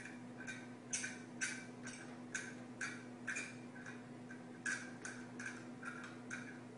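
Light, regular ticking clicks, about two a second, over a steady low hum.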